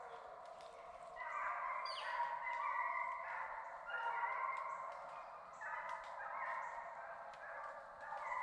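A pack of hunting hounds baying in chorus while running deer: many dogs' drawn-out, overlapping bawls rising and falling together.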